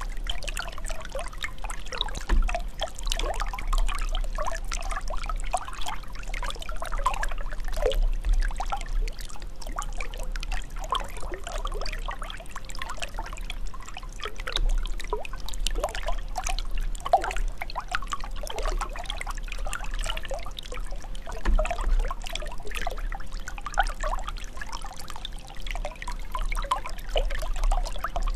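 Running water trickling and pouring steadily, with a constant stream of small gurgling, bubbling blips.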